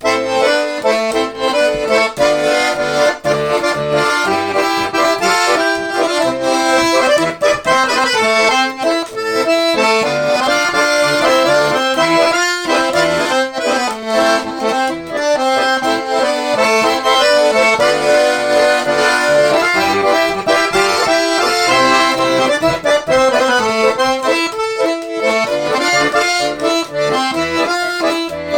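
Garmon (Russian button accordion) playing a melody over a pulsing bass-and-chord accompaniment: the instrumental introduction to a song, with no voice yet.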